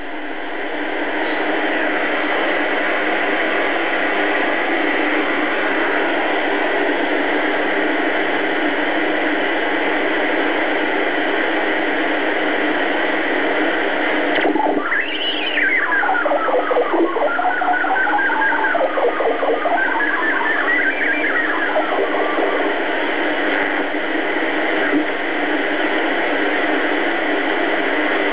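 A BC-312G military shortwave receiver hissing with static between stations as it is tuned. About halfway through, a whistling tone sweeps up sharply, then wavers up and down in pitch for several seconds as the dial passes a signal, before dropping back into the hiss.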